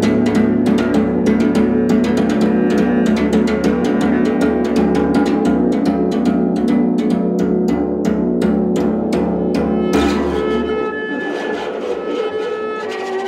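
Cello bowing a sustained low drone under fast, even repeated strokes on the strings of a bass koto. About ten seconds in, the low drone and the strokes stop, leaving a few held higher string tones.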